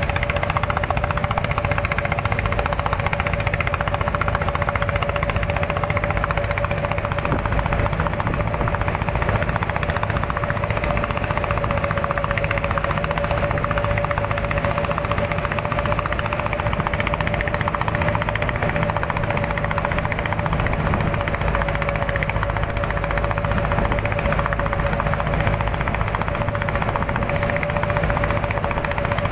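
A small motor running steadily with a fast rattle and an even, high whine that holds one pitch throughout.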